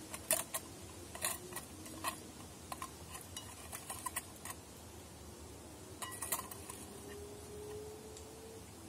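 Metal utensil clinking and scraping against a small steel pot in irregular clusters of light clicks, as slices of bacon and salami are lifted out onto a bread roll.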